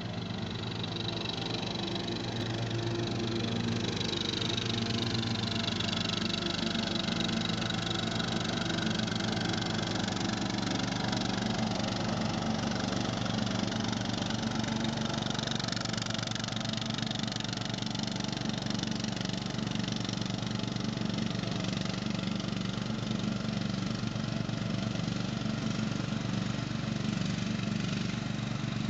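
Ride-on lawn mower's engine running steadily while mowing, with a few slow rises and falls in pitch in the first half.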